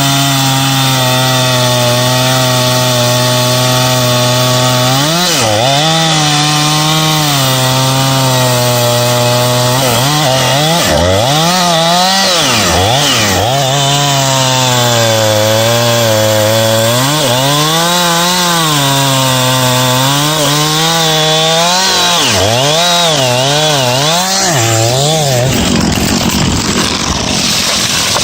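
Jonsered CS 2255 two-stroke chainsaw running at high revs. After about five seconds its note dips and recovers again and again, as it does when the chain bogs under load in wood. Near the end the engine note gives way to a rough hiss.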